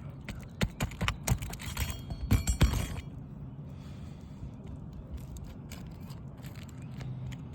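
Shingles and hand tools being worked by hand on an asphalt-shingle roof: a quick run of sharp clicks, knocks and scrapes over the first three seconds, then only a steady low hum.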